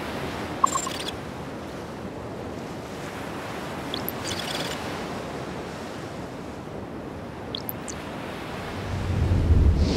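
Sound-designed sea wash of a motor yacht cutting through open water: a steady rush of waves and wake. Short high-pitched electronic blips and glides sound about a second in, at about four seconds and near eight seconds, and a low rumble swells in the last second.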